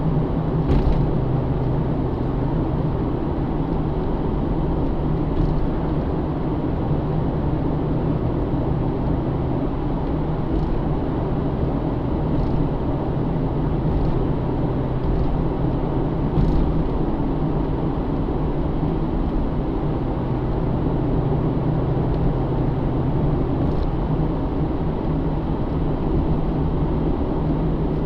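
A Pontiac G8 GT's 6.0-litre V8 running at a steady cruise with tyre and road noise, heard from inside the car's cabin. It is a constant low hum with a few faint ticks along the way.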